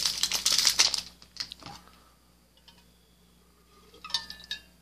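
A congested man clearing his throat in the first second, then a foil baseball-card pack wrapper crinkling in his hand near the end.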